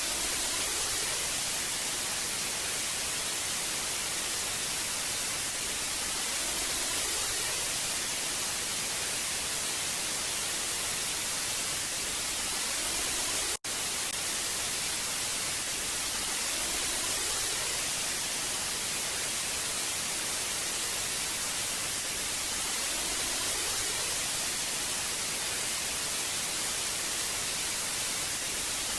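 TV static: a steady, even hiss, strongest in the high frequencies, with a split-second dropout about halfway through.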